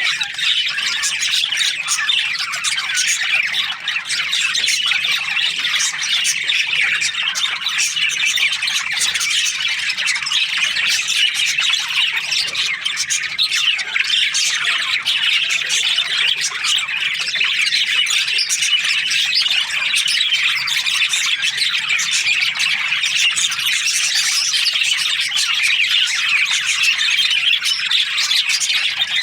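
A colony of budgerigars chirping together: a dense, unbroken chorus of many overlapping short chirps and chatter that keeps up at an even level.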